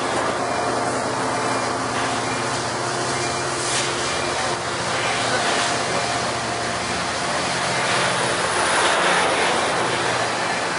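Amtrak bilevel passenger cars rolling past at close range: a steady rumble and rush of wheels on rail.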